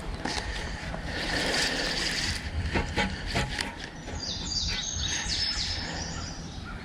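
A bird singing a quick run of short, high chirps in the second half, over a steady low rumble, with a few sharp knocks near the middle.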